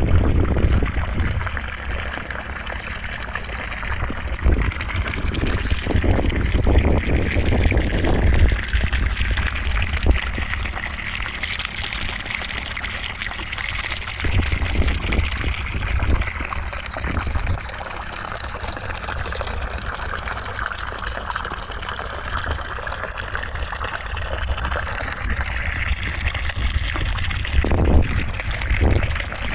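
Steady rushing white noise with a deep rumble underneath and a hiss that shifts slowly in tone.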